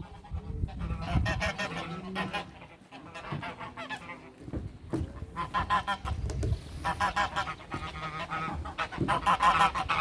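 Domestic geese honking, several birds calling over one another in quick repeated honks, getting busier and louder from about halfway through.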